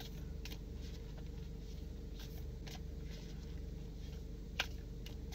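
Steady low hum inside a car's cabin, with a few soft clicks, the sharpest near the end.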